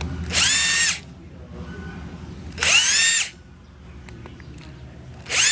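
Cordless power driver run in three short bursts, each whining up in pitch and then holding for about half a second, as fasteners are backed out to take off a two-stroke sprayer's carburetor.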